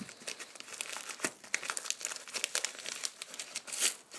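Jiffy Airkraft padded kraft-paper mailing envelope being torn and crumpled open by hand: a run of irregular crinkling and crackling, louder for a moment near the end.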